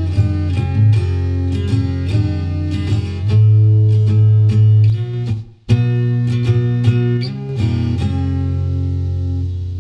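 Background guitar music, plucked and strummed notes over a steady low bass, breaking off briefly about halfway through before carrying on.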